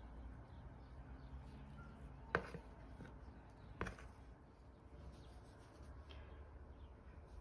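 Sticky bread dough being scraped out of a bowl with a silicone spatula onto a glass tabletop: faint scraping, with two sharp knocks about a second and a half apart, under a low steady hum.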